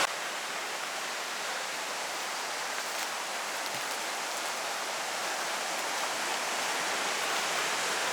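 Steady outdoor rushing hiss, even and unbroken, swelling slightly toward the end.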